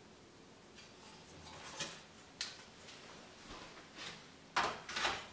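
Sheet-metal shield being lifted off the inside of an all-in-one PC: a few scattered light clicks and scrapes, the loudest pair about four and a half seconds in.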